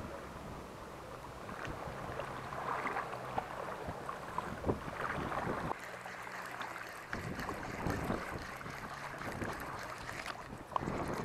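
Spinning fishing reel being cranked, with clicks and knocks from the reel and rod handling, over wind on the microphone and a low steady hum from a boat engine.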